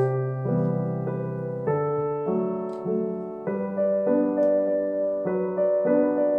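Background music: a piano playing a steady, even run of notes and chords, changing about twice a second.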